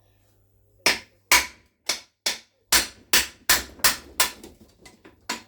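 A hammer striking the gearbox during the strip-down of a Renault Master gearbox: about a dozen sharp blows at a steady pace of two to three a second, starting about a second in.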